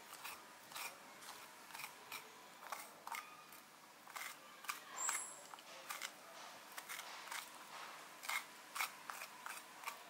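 Metal spoon scraping seeds and stringy pulp out of a halved pumpkin: a run of irregular scrapes and clicks against the flesh and rind, with a brief high squeak about halfway through.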